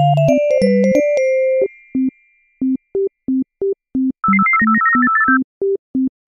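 Background music: a light, bouncy synthesizer tune. A melody plays for the first second and a half, then gives way to sparse short staccato notes, with a quick flurry of higher notes about four seconds in.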